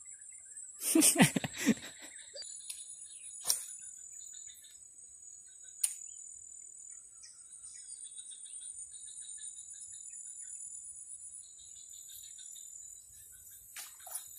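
Steady high-pitched insect chorus of crickets or cicadas, broken by a brief loud rustling clatter of handling noise about a second in and two sharp clicks a few seconds later.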